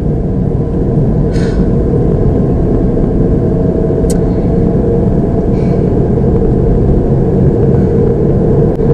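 Steady low rumble inside a car's cabin, with a faint steady hum and a couple of brief soft hisses.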